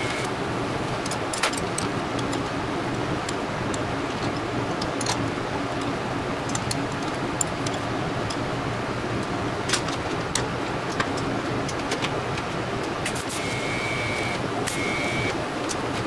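Steady hum of a TIG welding setup, with scattered light clicks and clinks as steel lever parts are handled and fitted in a vise. Near the end, two short bursts of the TIG arc's steady high tone sound as tack welds are struck.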